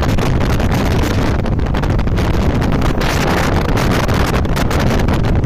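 Wind buffeting the microphone: a loud, steady rushing noise with an uneven low rumble.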